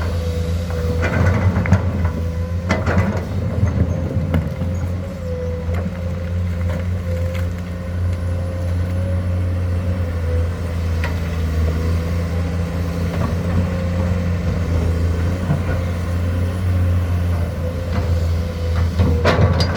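Komatsu excavator's diesel engine running steadily under load, a low drone with a wavering whine above it. A few short knocks come about a second in, a little later, and again near the end.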